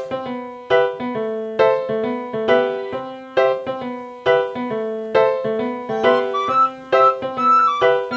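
Background piano music: a repeating figure of struck chords and notes, with a strong chord a little more than once a second.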